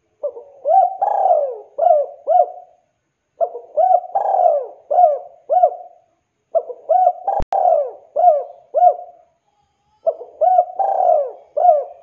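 Spotted dove (tekukur) cooing, four repeated call phrases of several arching coos each, about three seconds apart. A single sharp click falls in the middle of the third phrase.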